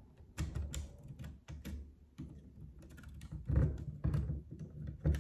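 Plastic Lego Technic pieces clicking and rattling as they are handled and pulled apart by hand, scattered sharp clicks with a couple of duller knocks in the second half.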